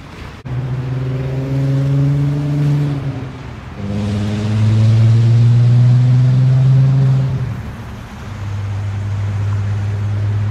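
An engine running under load starts abruptly about half a second in. Its pitch climbs a little, breaks off about three seconds in, comes back lower and climbs again until about seven and a half seconds, then settles to a steady hum.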